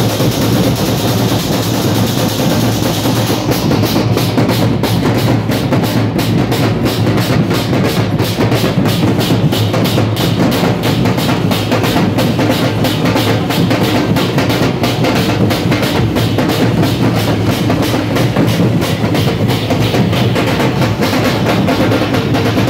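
A group of large dhol drums beaten in a loud, fast, driving rhythm, with the strokes sharpening from a few seconds in.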